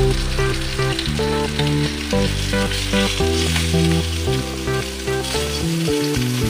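Fish kofta curry sizzling in a stainless steel pan, a steady frying hiss, under background music of held notes and bass tones that change every second or so.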